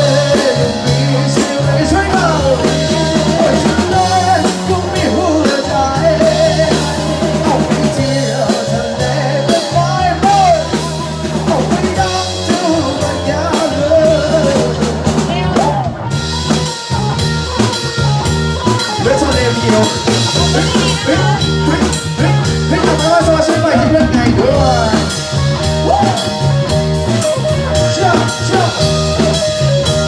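A live rock band playing a song: a singer's vocals through the PA over a drum kit, electric guitar and low sustained bass notes.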